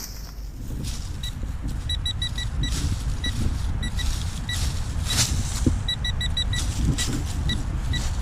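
A metal detector giving clusters of short, same-pitched beeps as it is swept over the ground, over a steady low rumble on the microphone and scattered rustling and crunching steps in leaf litter.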